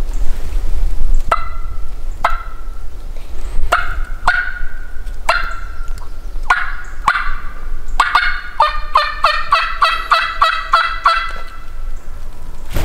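Turkey mouth call blown by a hunter to imitate a hen: a few spaced yelps, then a fast run of about a dozen yelps, roughly three a second, for the last few seconds.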